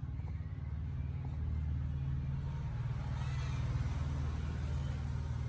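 Low, steady rumble of an engine running, swelling a little about halfway through.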